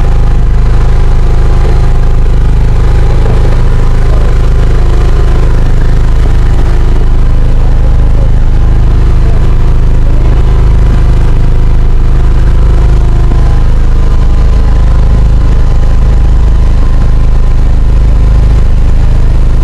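Boat engine on a motorized outrigger fishing boat running steadily: a loud, unchanging low drone.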